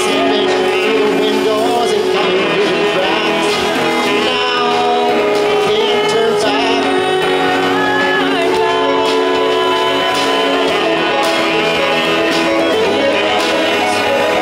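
Live rock band playing: electric guitars and bass, with singing.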